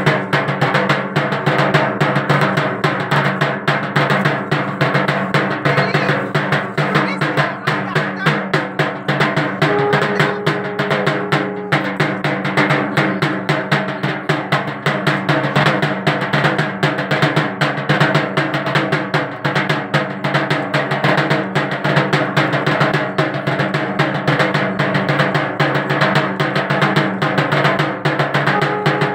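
Continuous rapid drumming, a fast, even roll of strokes with no break, with a short held tone sounding over it about ten seconds in.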